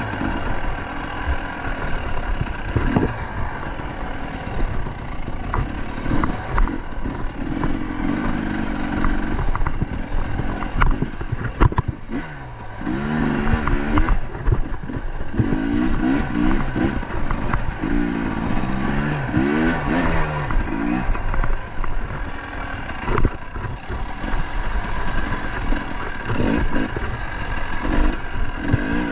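KTM dirt bike engine revving up and down, its pitch rising and falling repeatedly through the middle of the stretch. Frequent knocks and clatter come from the bike jolting over the trail.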